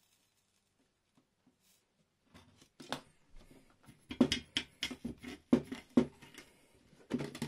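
Near silence, then from about two seconds in a run of sharp knocks and scrapes, roughly two a second. This is workbench handling noise as the soldering iron is jabbed and wiped in its brass-wool tip cleaner on the metal stand.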